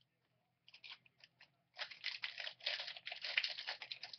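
Wrapper of a 2013 Panini Contenders football card pack crinkling as it is torn open: a few scattered crackles at first, then dense crinkling from about two seconds in.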